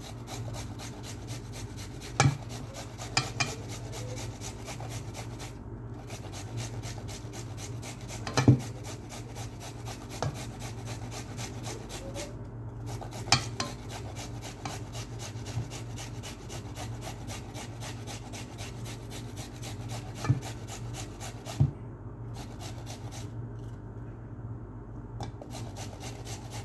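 Metal spoon scraping and working through a potato, onion and egg mixture in a frying pan, with about half a dozen sharp clinks of the spoon against the pan, over a steady low hum.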